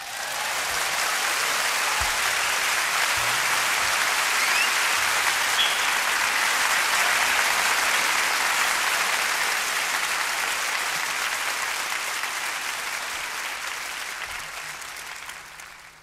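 Concert audience applauding after a song ends, a steady wash of clapping that fades away over the last few seconds. It is heard on a cassette recording of an FM radio broadcast.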